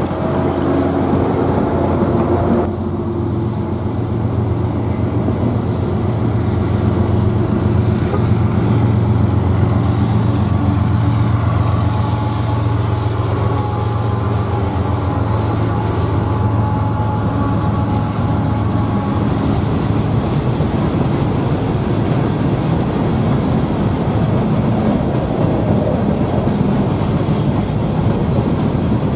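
For the first few seconds a Tri-Rail commuter locomotive's diesel engine runs as it pulls away. Then CSX GE ES44AH and ET44AH freight locomotives pass with a steady low engine drone that fades after several seconds. Their hopper cars follow, rolling by with a steady rumble of steel wheels on rail and some wheel squeal.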